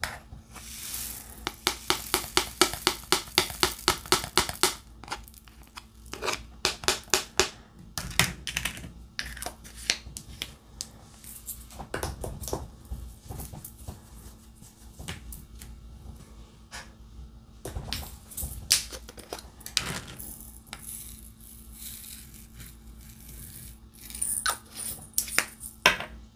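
Diamond painting: light, sharp clicks and rattles of resin drills in a plastic tray and of the drill pen tapping, with a quick even run of about five clicks a second a couple of seconds in, then irregular clicks and short rustles.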